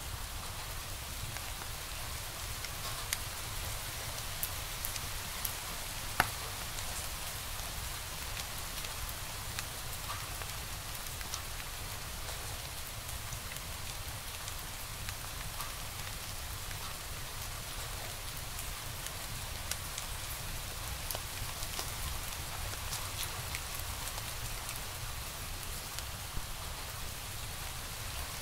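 Wood fire crackling steadily in a fireplace, a soft hiss under scattered small pops, with one sharper pop about six seconds in.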